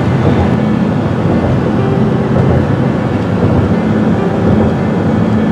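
Steady engine and road noise inside a van driving at freeway speed, with a low hum running under it.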